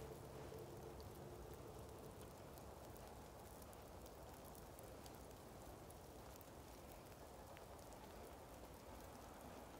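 Near silence: faint outdoor room tone, an even low hiss with a few scattered faint ticks.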